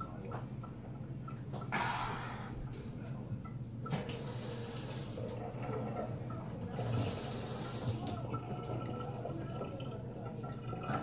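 Water running in three short spells, each about a second long, as from a kitchen tap turned on and off, over a low steady hum.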